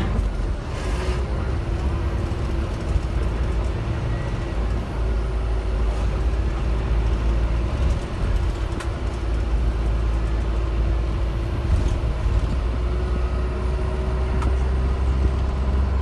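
Bus engine and tyre noise heard from inside the cabin while driving: a steady low rumble with a constant hum, and a few faint clicks or rattles.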